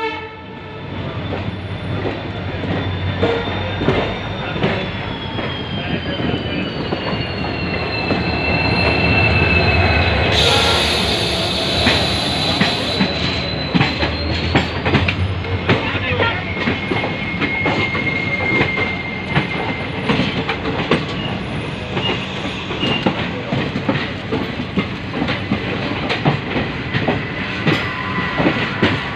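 Passenger train running, its wheels clattering over rail joints and points, with long high wheel squeals that slowly fall in pitch through the first half or so. About ten seconds in, a high hiss lasts two or three seconds. A second train runs close alongside on the next track.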